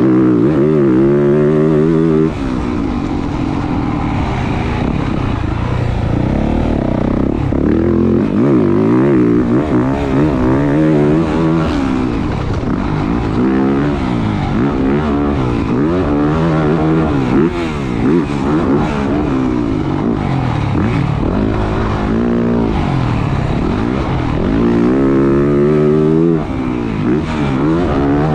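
Yamaha YZ450F's single-cylinder four-stroke engine ridden around a motocross track, revving up and down over and over as the throttle is opened and chopped. The engine speed falls off sharply about two seconds in and again near the end.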